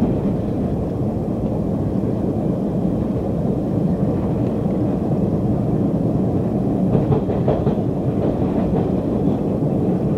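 Running noise inside an MBTA Orange Line subway car moving at speed on surface track: a steady low rumble of wheels on rail, with a few faint clicks about seven seconds in.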